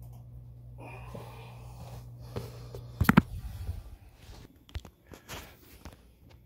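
Steady low electrical hum, which stops a little after a loud clunk about three seconds in. Then scattered knocks and rustles as the camera is handled and picked up.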